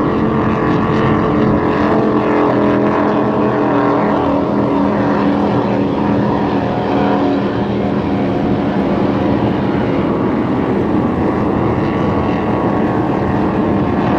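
Motorboat engine running at a steady pitch, over a steady rushing noise.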